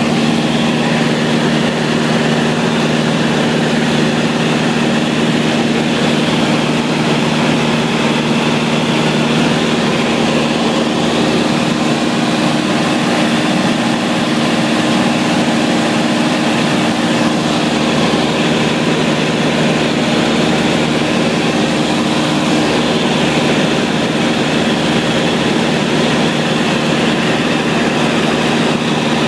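Piston engine and propeller of a small high-wing light aircraft droning steadily in flight, heard from inside the cabin.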